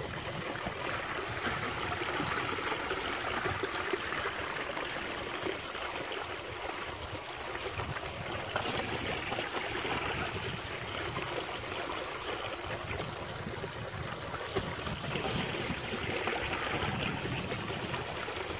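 Water running steadily down a small gold-prospecting sluice box, flowing over the sluice mat and washing sand through it.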